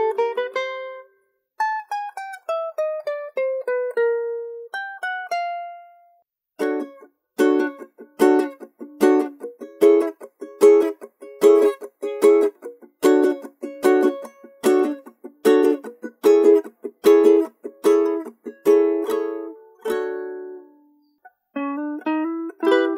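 Handmade ukulele played solo: single plucked notes in a falling melody, then steady strummed chords for most of the stretch, and picked notes again near the end after a short pause.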